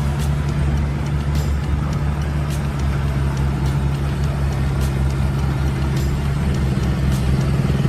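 Kubota combine harvester's diesel engine running steadily under load with an even hum, along with the clatter of its cutting and threshing works.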